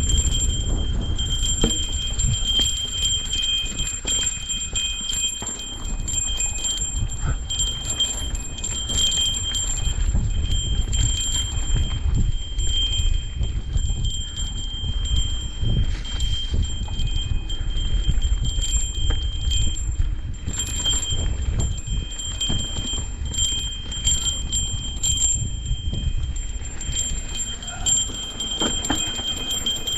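A metallic ringing held at a few fixed high pitches, flickering louder and softer with constant small knocks, over a steady low rumble of a bike moving over rough ground.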